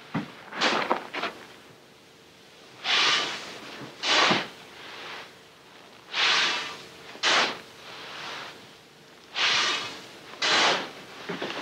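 A shovel scooping grain from a heap and tipping it into a sack: short rushing scrapes of grain, in pairs about every three seconds.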